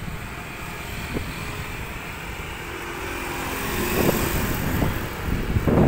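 Wind buffeting the microphone with a low rumble, while a vehicle engine hums in the background and gets louder in the second half.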